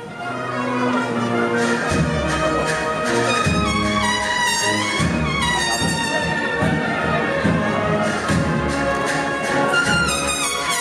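Brass band playing a slow processional march, with trumpets carrying the melody over a steady full band sound.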